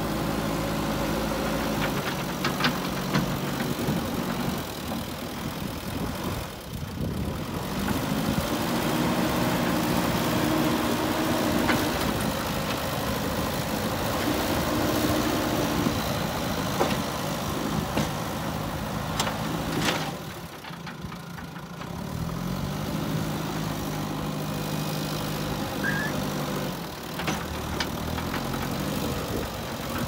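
JCB 3DX Super backhoe loader's diesel engine running, revving up and settling back several times under load as the front bucket pushes sand, with a few sharp knocks.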